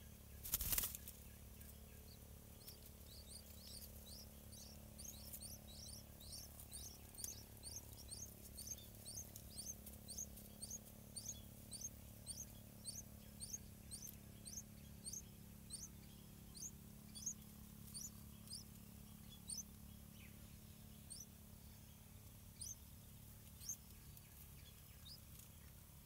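Yellow-vented bulbul nestlings begging as a parent feeds them: a rapid series of thin, high cheeps, two or three a second, thinning out toward the end. A short burst of wing flutter about a second in, as the parent lands at the nest.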